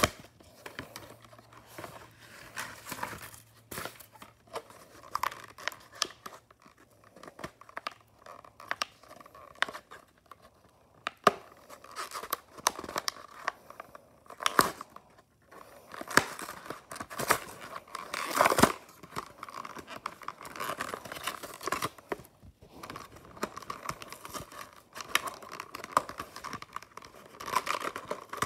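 Cardboard backing and clear plastic blister of a die-cast toy car package being torn open and pulled apart by hand: irregular tearing, crinkling plastic and sharp crackles, with a few louder rips.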